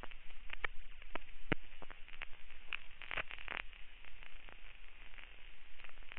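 Old-film crackle: a steady hiss scattered with irregular clicks and pops over a low hum, as from a worn, scratched film soundtrack.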